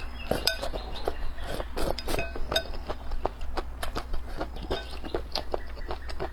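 Close-miked eating sounds: quick, irregular wet clicks and smacks of chewing, several a second.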